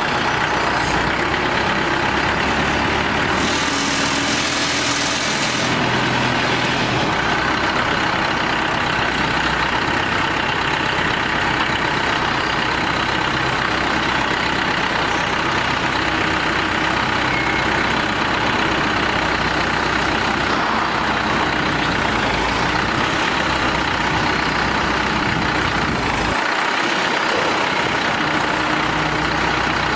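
Drilling rig's engine running steadily under operation, with a hiss of about two seconds starting around 3.5 seconds in.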